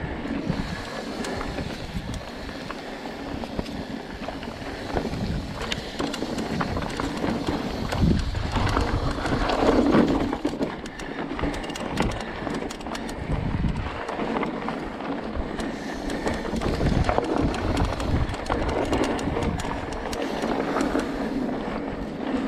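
Giant Reign SX 29 full-suspension mountain bike riding a dirt and rock trail: knobby tyres crunching over dirt and stones, the bike clattering and knocking over bumps, and wind rumbling on the microphone.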